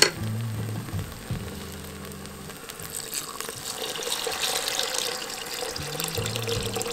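Beef stock poured in a steady stream into a stainless steel stockpot of caramelized onions, the splashing and gushing of the liquid building from about three seconds in. A single sharp clack at the very start.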